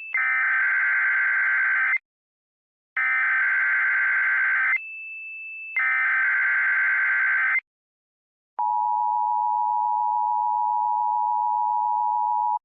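Emergency Alert System SAME header: three bursts of warbling digital data tones, each about two seconds long with short gaps, and a fainter steady high tone between the second and third. Then comes the two-tone EAS attention signal, a steady tone lasting about four seconds.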